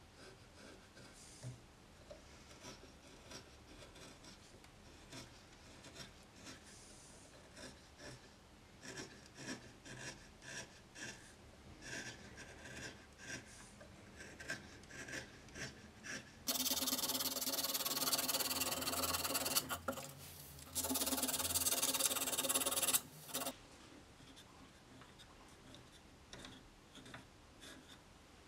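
Hand carving chisel paring shavings from a wooden spindle held still on a lathe, a series of short scraping cuts. About halfway through, a much louder steady rushing noise starts suddenly, runs for about three and a half seconds, stops, and runs again for about two seconds.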